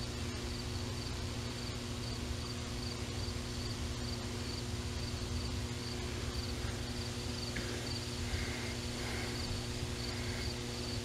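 Insects chirping in a steady high-pitched rhythm, about two chirps a second, over a low steady hum.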